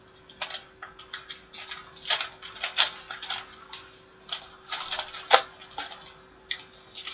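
Kraft paper mailing envelope being torn open by hand: an irregular run of crackling paper rips and crinkles, the sharpest about five seconds in.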